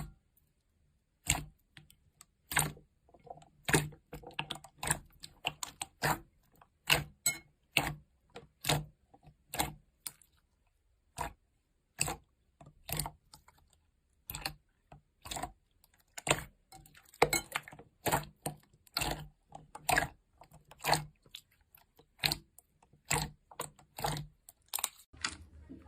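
Slime being pressed and poked, making a long irregular series of sharp pops and clicks, about one or two a second, many with a dull thud beneath them.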